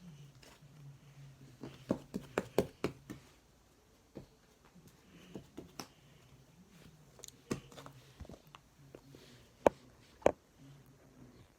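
Slime being played with by hand, giving scattered short clicks and pops: a cluster about two seconds in and two sharper ones near the end, over a faint low hum.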